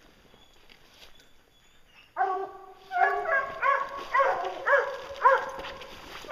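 Hunting hounds baying: one long drawn-out bawl about two seconds in, then a run of rising-and-falling barks at roughly two a second.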